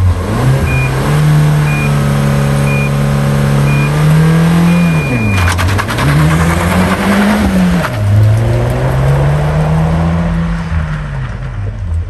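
Suzuki Swift Sport (ZC33S) rally car's 1.4-litre turbocharged four-cylinder held at steady high revs on the start line while the start clock beeps five short times and then once long. On the long beep the car launches, the engine note dipping and then climbing and dropping with the gear changes as it pulls away.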